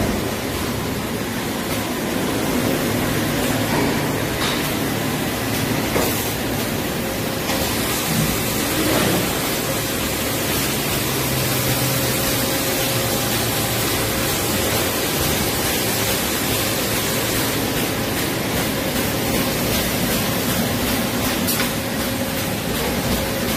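Steady hiss and hum of a large injection-moulding machine and its takeout robot running, with a faint steady tone and a few brief clicks.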